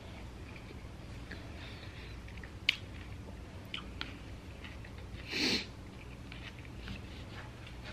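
A person eating close to the microphone: soft chewing of a cheeseburger and a plastic fork picking at animal-style fries in a paper tray. A sharp click comes about two and a half seconds in, and a short, louder rush of noise comes about five and a half seconds in.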